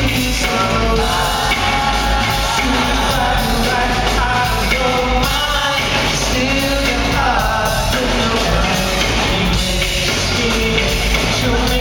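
Live band music with a lead singer on microphone, played loud through a concert sound system and heard from the audience, with a heavy steady bass line under the vocals.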